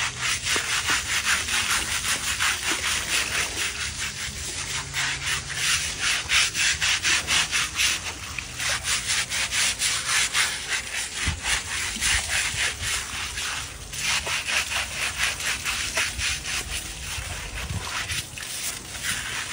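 A stiff hand brush scrubbing an elephant's teeth and mouth, in fast back-and-forth strokes of about four to five a second, with water splashing.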